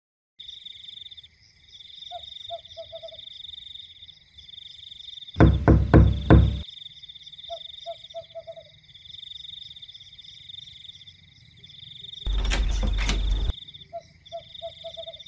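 Night ambience of crickets chirping steadily, with frogs croaking in three short runs of four or five croaks. About five and a half seconds in come four loud knocks on a door, and about twelve seconds in a harsh noise lasting about a second.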